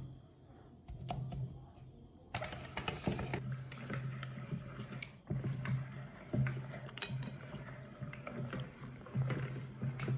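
A meat grinder working: a low drone that stops and starts several times, with clicking and clattering over it.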